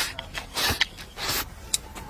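Eating sounds: two short noisy slurps with small mouth clicks between them.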